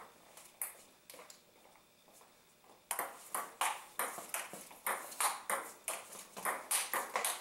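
Table tennis rally: the ball clicking off the paddles and the table. Two single taps come early, then after a short pause a quick back-and-forth of about three hits a second starts about three seconds in.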